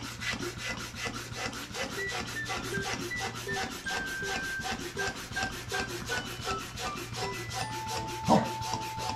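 Small hand air pump worked rapidly to inflate a rubber gym ball: rhythmic rasping strokes, about five a second. There is one louder knock near the end.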